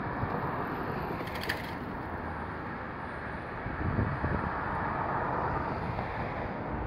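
Street traffic noise: a tram moving off down the street and cars driving by, with a short clatter about a second and a half in. One car passes close between about four and six seconds in.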